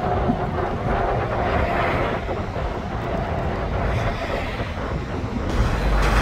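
Highway traffic with heavy trucks going by: a steady rush of engine and tyre noise, with wind buffeting the microphone. Music starts near the end.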